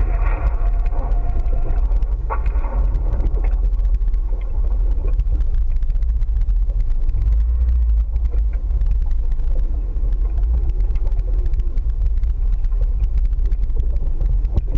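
Tow boat's engine running at low speed: a steady low rumble.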